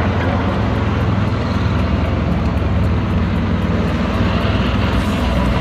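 Tiger I tank driving on its tracks, its engine running loud and steady with a deep rumble.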